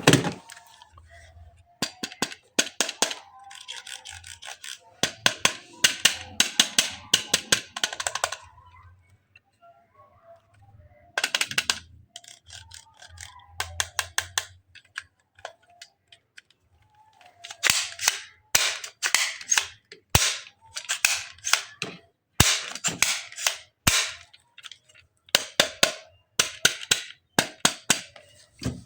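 Electric Spider-Man toy gun firing rapid bursts of electronic shot sounds, in several runs of a second to several seconds with short pauses between.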